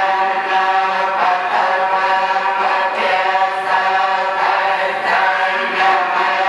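Buddhist monks chanting a litany in unison: a steady drone of many voices held on a few pitches.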